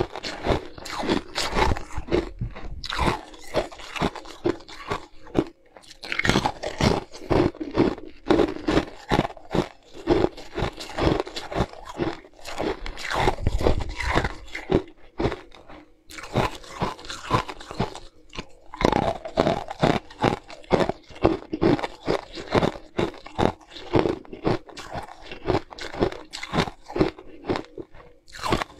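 Crunching and chewing of pieces of frozen coloured ice, bitten and crushed between the teeth in quick, irregular crunches several times a second.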